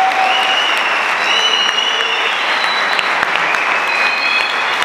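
Audience applauding, with a few high, held whistles over the clapping.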